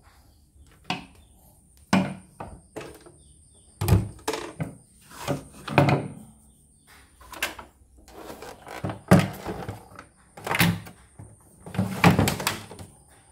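Irregular knocks and thuds, about a dozen, as things are handled and set down on a wooden workbench, the loudest near the end, over a faint steady high-pitched whine.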